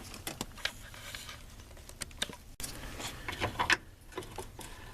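Irregular light clicks and taps of hand tools being handled while a ratchet is fetched.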